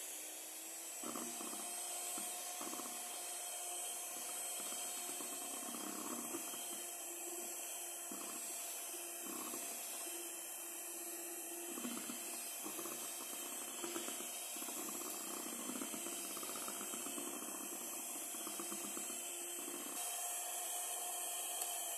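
Miyako electric hand mixer running steadily at speed, its beaters whipping a foamy egg and sugar mixture in a stainless steel bowl: a steady motor whine over an uneven churning of the batter.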